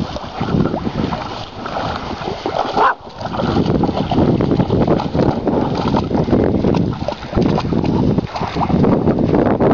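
Dogs scrambling out of a pond and running through tall wet grass, heard under heavy wind noise on the microphone, with a short dog whine about three seconds in.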